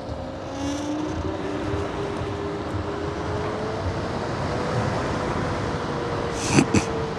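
Electric scooter's motor whining as it speeds up, the whine rising in pitch over the first few seconds and then holding steady, over wind and road noise. Two sharp knocks come near the end.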